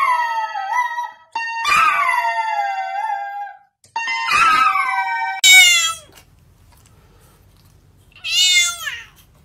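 A small poodle howls in three falling, wavering wails while its paws press the keys of a toy electronic keyboard, which sounds steady held notes under each wail. A cat then meows loudly, twice: a short call about halfway through and a longer falling meow near the end.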